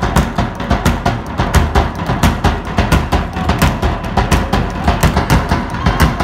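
A large drum struck hard in a fast, even rhythm of several strokes a second, live drumming accompanying a dance troupe.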